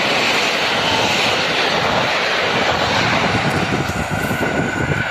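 TLK express passenger train's coaches running past at about 100 km/h: loud, steady rushing noise of wheels on rails. A thin high whine comes in near the end as the last coach goes by.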